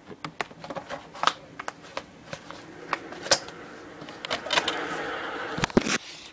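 Handling noise of a phone camera being moved about: irregular clicks, taps and knocks, with a stretch of rustling in the second half.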